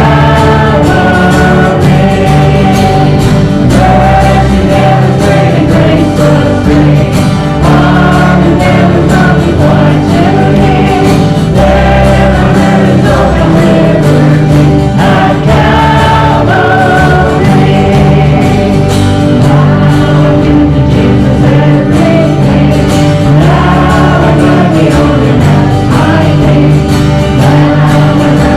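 A congregation singing a gospel hymn together over musical accompaniment, with long held notes.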